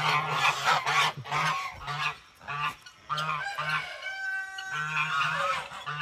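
Geese honking over and over, several calls overlapping in a rapid, noisy chorus.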